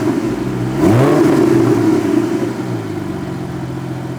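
Porsche Boxster GTS 4.0's flat-six running through a titanium Akrapovic catback exhaust: a rev falling back at the start, a second blip of the throttle about a second in, then settling to a steady idle.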